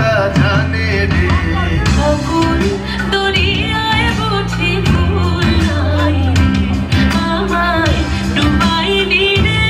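Music: a Hindi song played over a stage sound system, with a steady low bass line and a winding melody line above it.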